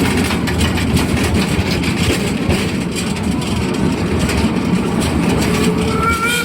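Steady running rumble of a small narrow-gauge forest-railway train, pulled by the Amamiya No. 21 steam locomotive, heard by a rider aboard.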